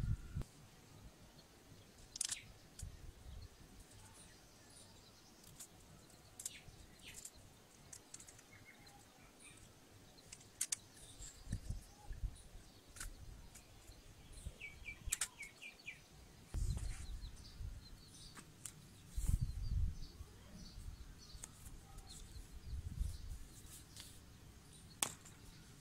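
Quiet outdoor background with birds chirping now and then, and scattered small clicks and taps from hands handling small plastic and steel parts. There are a few low bumps about two-thirds of the way through.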